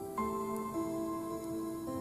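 Gentle background music: soft held notes in a slow melody.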